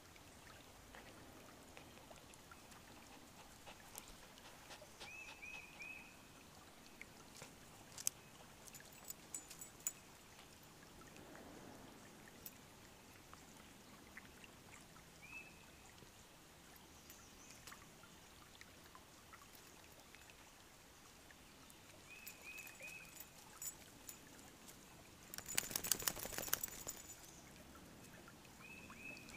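Faint trickle of a shallow woodland creek, with a small bird giving short chirps in quick runs of three or four, several times over. A brief, louder scuffling noise comes near the end.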